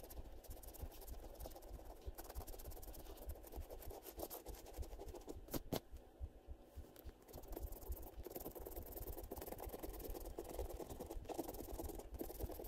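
A coin scratching the coating off a paper scratch-off lottery ticket: faint, irregular rapid scraping, with a couple of sharper ticks about halfway through.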